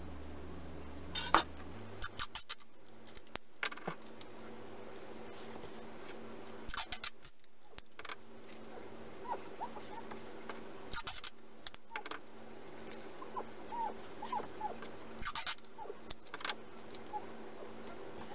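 Light handling noises on a hardboard panel: a steel rule and hands tapping, knocking and rubbing on the board and its paper stencil, in scattered clusters of small clicks with a few brief squeaks, over a steady low hum.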